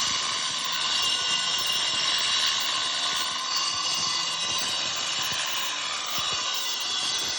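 A power tool motor running continuously with a steady, high-pitched whine over rushing noise.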